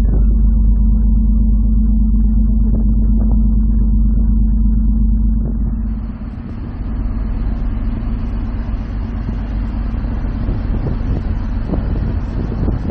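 Ferry's engines droning low and steady with a held hum. About halfway the sound changes to a wider rushing hiss of wake water and wind on the microphone, still over the low rumble.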